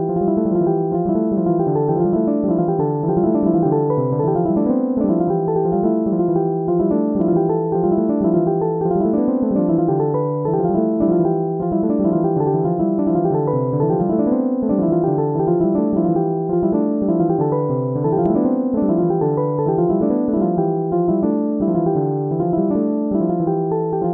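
Background music: steady piano or electric-piano arpeggios rolling up and down.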